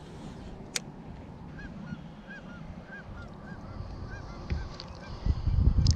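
A goose honking, a quick run of about ten calls, each a short rise and fall in pitch. Near the end a loud low rumble of wind buffeting the microphone takes over.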